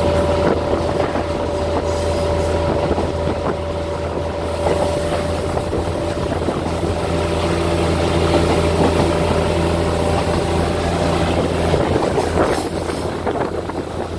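Diesel passenger train running along the track, heard from inside a carriage: a steady rumble and drone. The low hum in it drops away about twelve seconds in.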